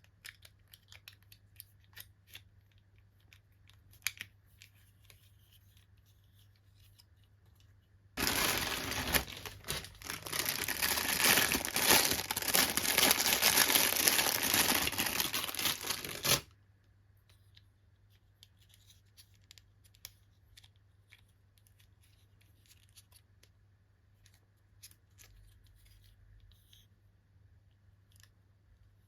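Toy packaging being handled and torn open: faint clicks and rustles, then about eight seconds of loud continuous tearing and crinkling that stops abruptly, followed by light rustling.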